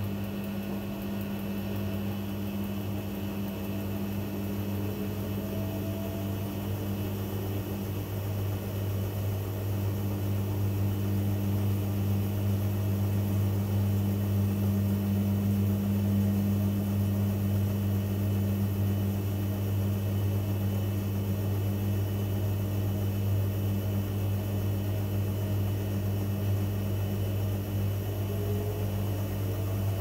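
AEG Lavamat 76850 front-loading washing machine in its wash phase, drum turning with sudsy water: a steady low motor hum, with a faint whine rising in pitch near the start and again near the end.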